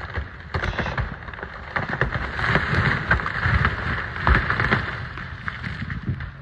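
Burning Jeffrey pine crackling and popping hard, with sharp cracks of wood as the trunk splits and its upper part falls; loudest a little after four seconds in.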